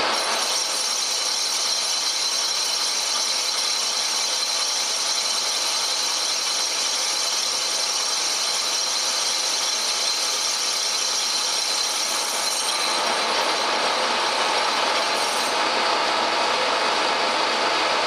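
Pacemaker lathe running with a titanium brake bell spinning in the chuck while a carbide tool turns down its diameter in light cuts. A steady machine noise with a high-pitched whine and squeal; the sound shifts about two-thirds of the way through, and the high whine stops a few seconds before the end.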